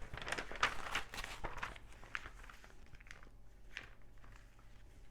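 Small plastic LEGO pieces clicking and clattering as they are handled. A quick flurry of clicks comes in the first couple of seconds, then a few scattered ones.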